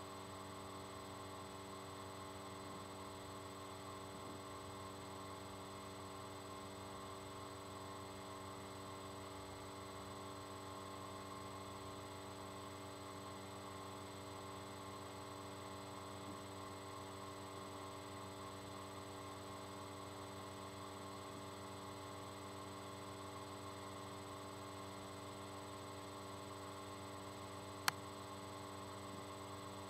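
Low, steady electrical hum made of several fixed tones, from the recording's own electronics or the mains. It does not change, apart from one sharp click near the end.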